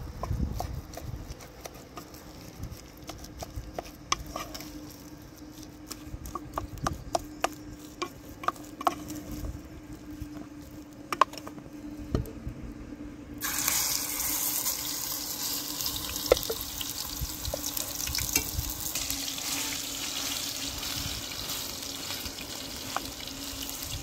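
A wooden spoon clicks and scrapes against an aluminium pot of thick batter. About halfway through, a sudden steady sizzle starts as the mixture goes into hot oil in a pan over a wood fire, and it keeps frying.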